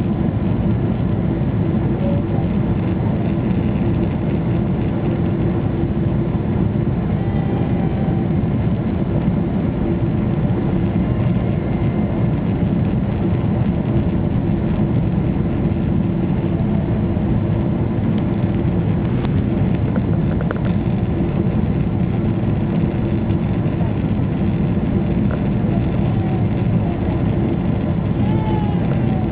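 Boeing 777 airliner heard from inside the passenger cabin: a steady, loud low rumble of engines and airflow with a constant hum, unchanging throughout.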